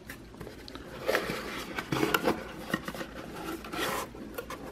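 Small cardboard box being opened by hand: the tuck-in lid and flaps scrape and rub, with a few light clicks, in irregular bursts about one, two and four seconds in.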